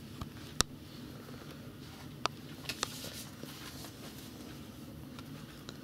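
A few short, sharp clicks and taps from hands working on a mitten being hand-sewn, over a steady low hum of room tone. The loudest click comes about half a second in, and a small cluster follows between two and three seconds in.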